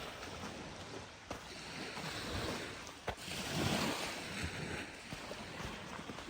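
Small waves washing onto the beach, a rushing sound that swells twice as waves come in.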